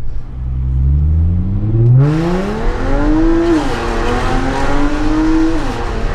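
Audi A7's supercharged 3.0 V6 with an Armytrix valved stainless exhaust under full-throttle acceleration. The engine note rises steadily and drops once at an upshift about three and a half seconds in. It then climbs again until the revs fall near the end.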